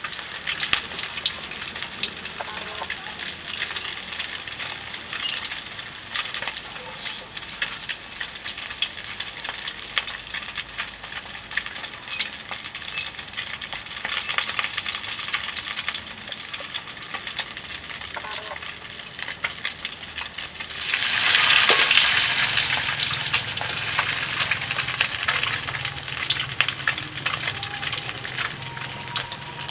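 Eggs frying in hot oil in a pan, a steady crackling with constant small pops. About 21 seconds in the sizzling suddenly turns louder, then eases off.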